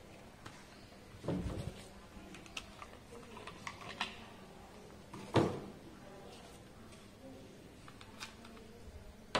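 Plastic bottles and caps being handled: a spray bottle's trigger head unscrewed and set down, caps taken off, with scattered light clicks and two louder knocks, one about a second in and one past the middle.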